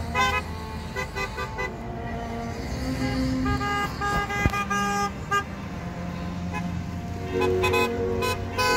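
Car horns honking in repeated short toots as vehicles drive past, over the sound of passing cars.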